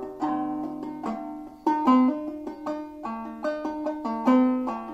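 Open-back five-string banjo played clawhammer style in fCFCD tuning, picking out a haunting old-time melody with plucked notes ringing over one another.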